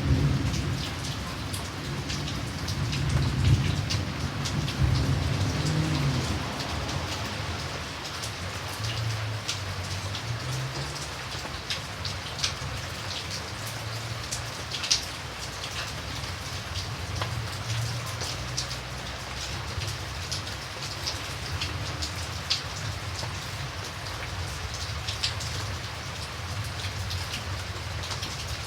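Steady rain falling, with single close drops heard as sharp ticks throughout. A low rumble of distant thunder in the first few seconds dies away, and fainter rumbles return a couple of times later.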